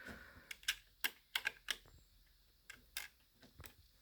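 Irregular small clicks and taps from handling the TV's circuit board as its cable connector is plugged back in, busiest in the first two seconds with a short lull before a few more clicks.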